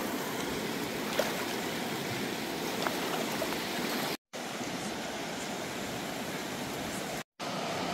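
Mountain creek running: a steady rush of flowing water, broken by two brief dropouts where the clips are cut together.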